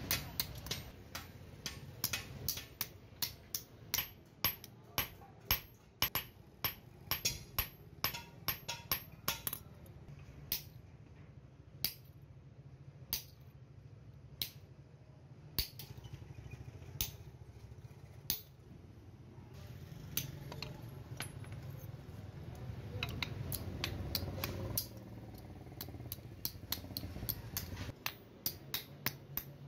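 Hand hammer striking a small piece of metal held in pliers on a steel anvil: sharp metallic taps, about two a second, thinning to scattered strikes in the middle and coming quickly again near the end.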